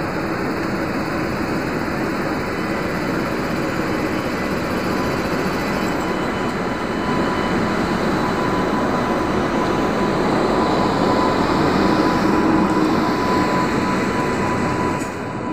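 WAP-5 electric locomotive rolling slowly past at close range: a steady rumble of wheels and running gear with a steady whine, growing louder past the middle and easing near the end.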